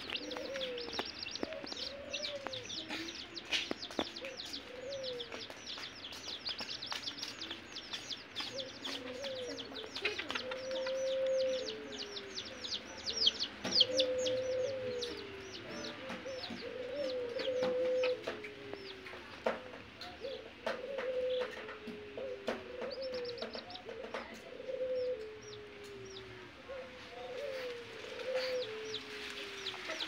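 A group of domestic chicks peeping constantly in rapid, high, falling chirps. Under the chirps a lower call repeats every second or two.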